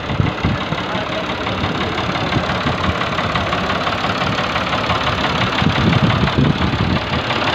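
Ford tractor engine running steadily while pulling a trolley through loose ploughed soil.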